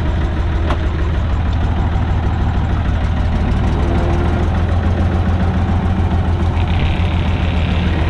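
Heavy farm diesel engine running steadily at a constant speed.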